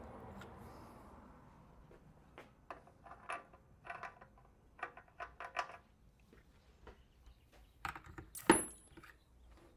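Small metal clinks and taps from an axle nut and washer being tried and worked by hand on a vintage British motorcycle's rear axle. A cluster of short clicks comes a few seconds in, and one louder knock near the end.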